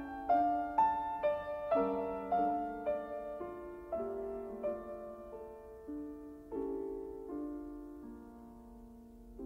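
Slow piano music: single notes and chords struck and left to ring, growing sparser and softer toward the end.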